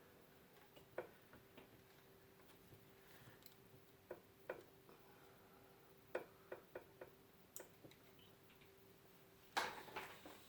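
Scattered small clicks and taps of computer case parts being handled during a video card install, over a faint steady hum, with the loudest cluster of clicks near the end.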